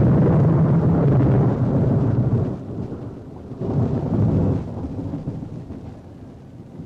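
Loud rolling thunder that rumbles for the first two and a half seconds, dies down, swells again briefly about three and a half seconds in, then fades away.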